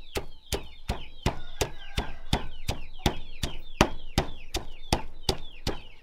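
Stone pestle pounding shallots in a heavy stone mortar: steady, even strokes about three a second.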